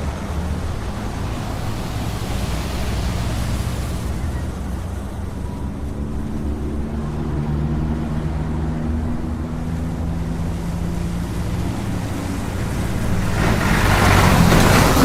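Steady highway traffic rumble from the roadside, with the low drone of engines. Near the end a vehicle approaches and passes with a rising rush of tyre and engine noise.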